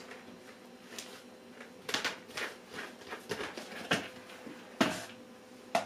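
Handling noise from a gaffer-taped plastic drinks bottle, its cap and plastic tubing: a string of separate light clicks and knocks at irregular moments as the valve-fitted cap is unscrewed and taken off.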